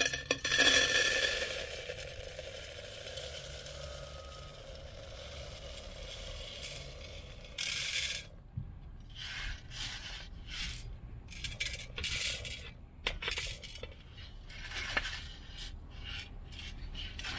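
Roasted coffee beans pouring from a metal roasting drum into a steel coffee canister. A dense rattling cascade in the first two seconds softens to a steady trickle, then from about halfway the beans come in short, irregular clattering bursts.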